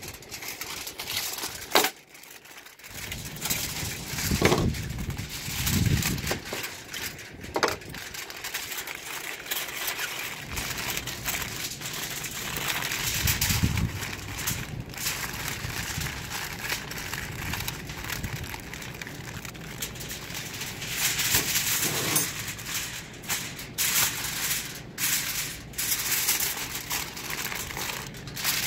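Aluminum foil crinkling and crackling as hands fold and press it tightly around a cooked pork butt, double-wrapping it, with a steady run of crinkles and sharper crackles along the way.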